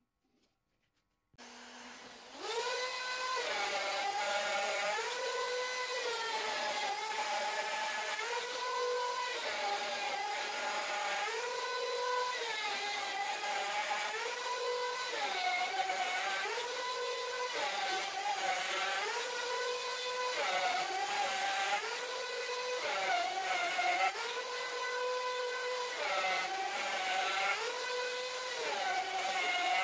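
Handheld wood router on a flattening sled, cutting across a cured epoxy-and-wood tabletop. It starts after a second or two of near silence, then runs steadily, its pitch dipping under load and recovering every two seconds or so as it bites into the surface.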